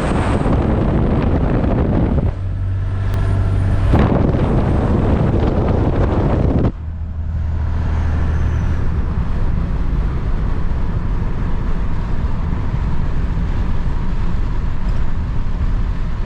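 Diesel pickup truck driving at road speed: steady engine and road noise, with a low engine drone coming through at times and the sound changing abruptly a few times.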